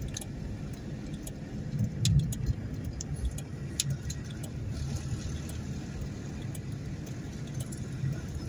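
Car driving slowly, with a steady low engine and tyre rumble heard from inside the cabin and scattered small rattles and clicks.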